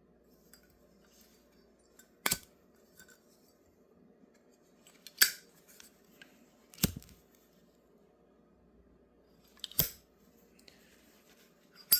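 Brass Zippo lighter lids clacking open and snapping shut, five sharp metallic clicks spaced a few seconds apart, over a faint steady hum.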